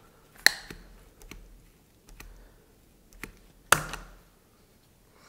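Fixing-foam dispensing gun being worked while foaming a door frame into its opening: two sharp clicks, about half a second in and near the end, with a few fainter taps between.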